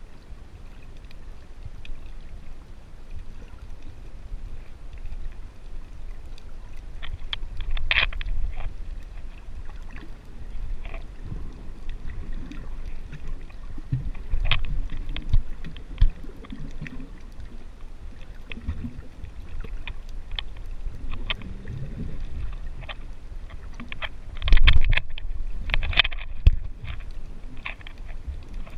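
Muffled underwater sound from a GoPro in its waterproof housing, held under the sea: a steady low rumble of moving water with scattered clicks and knocks. Louder knocks come in short bunches, the loudest about twenty-five seconds in.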